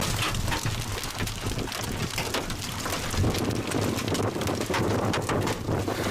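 Hail and rain pelting a vehicle: a dense, continuous patter of sharp hits, with a steady low hum underneath.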